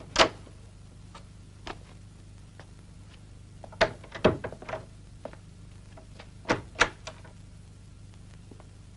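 Scattered sharp knocks and clicks at irregular intervals over a steady low hum, the loudest just after the start, a cluster around four seconds in and a pair near seven seconds in.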